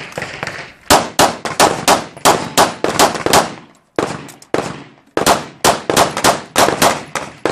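A rapid string of semi-automatic pistol shots, fired about three a second, with two short breaks partway through.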